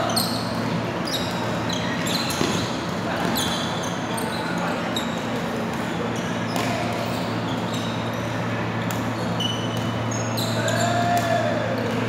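Badminton play: rackets striking shuttlecocks in quick sharp cracks and court shoes squeaking in short high chirps, over a steady low hum in the hall. Near the end a player lets out a brief drawn-out call.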